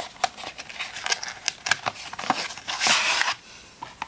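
A cardboard product box being handled and opened: a run of small clicks and scrapes, then a longer, louder scraping rush about three seconds in as the fabric Kindle cover slides out of it.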